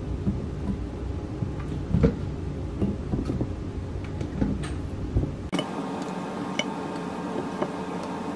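Soft, scattered knocks of zucchini halves being set down in a baking pan, over a low steady rumble. About five and a half seconds in, the rumble drops out and a quieter hum remains.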